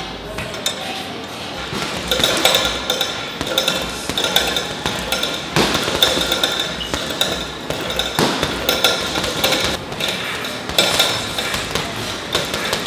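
Boxing gloves striking a double-end bag: a quick, uneven run of smacks.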